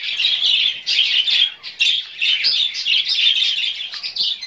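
Many caged pet birds chattering and chirping together in a dense, unbroken high-pitched chatter of short calls.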